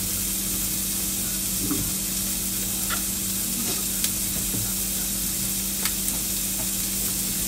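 Sliced onions sizzling steadily in hot oil in a frying pan. A steady low hum runs beneath it, and a few faint ticks come through.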